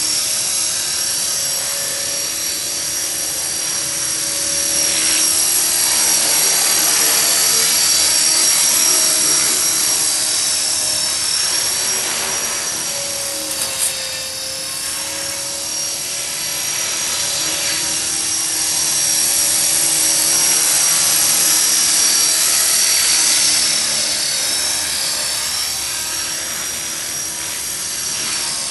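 EXI 450 electric RC helicopter in flight: a steady high-pitched whine from its motor and rotor that swells and fades as it flies, the pitch wavering slightly now and then.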